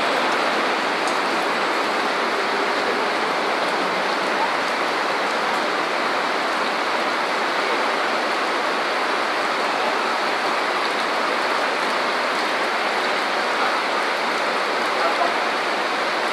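Heavy rain falling steadily on a city street, a dense, even hiss that does not change.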